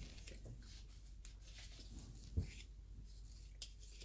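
Faint handling noise of a small plastic Kinder Joy toy: light scratchy rustling, with a soft knock about two and a half seconds in and a small click near the end.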